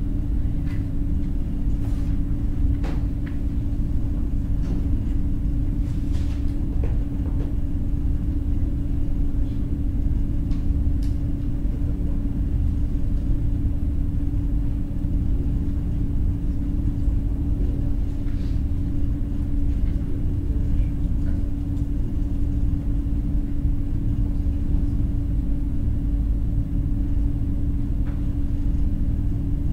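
Steady low rumble with a constant hum, the background noise of a classroom, with a few faint scattered clicks and knocks, mostly in the first few seconds.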